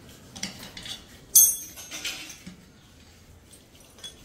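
Metal clinks of an open-end spanner on steel wheel nuts as a trolley wheel is being unbolted, with one sharp ringing clink about a second and a half in and lighter ticks after.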